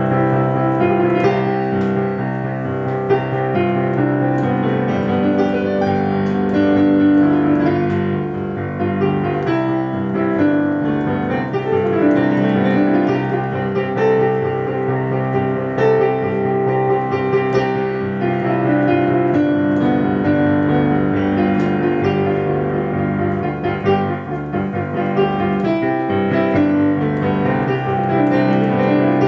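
Digital piano played with both hands: a continuous piece of held chords under a moving melody.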